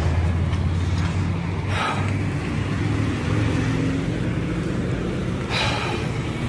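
Road traffic: a steady low engine hum, with vehicles swishing past about two seconds in and again about a second before the end.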